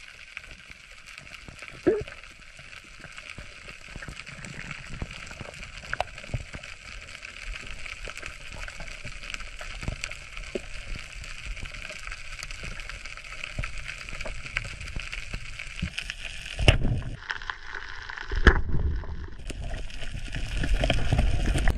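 Underwater sound picked up by a diver's camera over a reef: a steady hiss with scattered sharp clicks, then louder low rumbling and gurgling bursts over the last few seconds.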